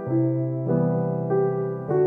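Background piano music: a slow, gentle melody with a new note or chord about every 0.6 seconds.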